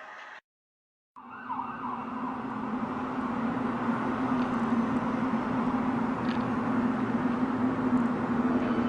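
An unexplained steady low drone over a rushing noise, the kind of strange sky sound these clips record. It starts about a second in, after a break of silence, with a brief wavering whine at the start, and grows gradually louder.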